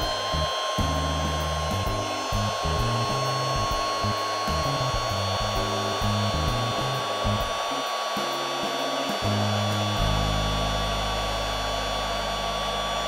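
Handheld embossing heat gun running: a steady rush of blown air with a high motor whine, heating and shrinking heat-shrink tubing.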